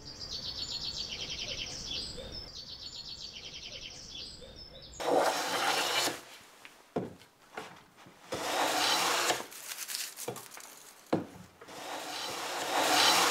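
A small bird singing quick, high, repeated trills, then a hand plane shaving wood: three long strokes across a board with a few short knocks between them, starting about five seconds in.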